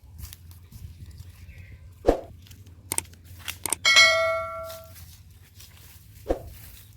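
A single bright, bell-like ding about four seconds in that rings on and fades over about a second, with light clicks and two dull knocks around it.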